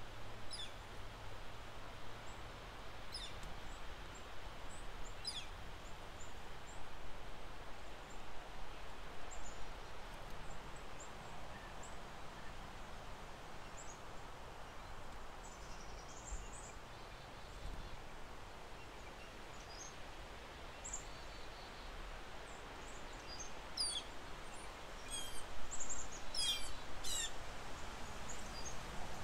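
Steady outdoor wind noise with scattered faint bird chirps, and a run of quick, high, falling bird calls near the end.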